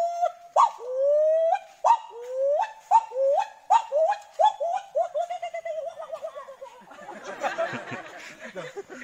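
A man imitating an animal call with his voice: a run of rising whooping calls that get shorter and quicker, followed by a group of people laughing near the end.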